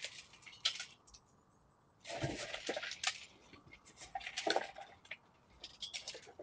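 Irregular scraping and clinking at a sliding glass door as someone works at its bottom frame, in short bursts a second or two apart.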